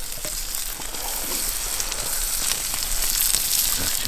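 Food sizzling in a hot pan over a campfire: a steady frying hiss with a few small crackles, growing a little louder about a second in.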